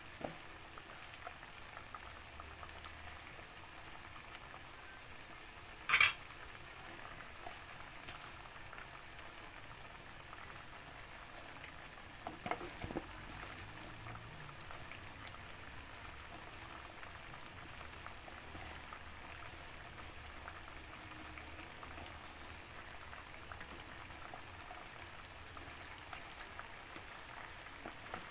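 Chop suey broth with vegetables at a steady boil in a metal wok, bubbling and fizzing. A single sharp click about six seconds in and a few light knocks around thirteen seconds.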